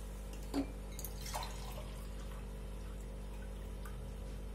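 A few faint drips of water into a pan, the clearest about half a second to a second and a half in, over a steady low hum.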